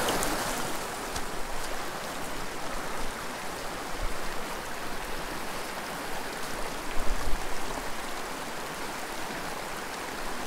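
Small mountain creek flowing steadily, with a few brief low bumps, the loudest about seven seconds in.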